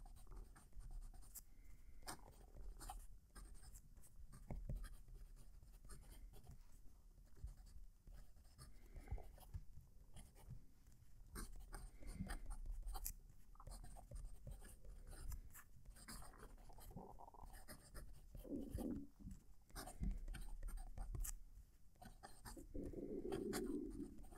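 Kaweco Sport Classic fountain pen with a broad nib writing on paper, close to the microphone: faint, irregular scratching of the nib as words are written.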